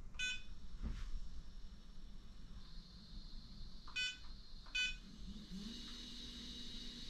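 The iOptron GEM28 mount's hand controller beeps three times as keys are pressed. About five and a half seconds in, the mount's drive motors start slewing the telescope with a steady electric whine.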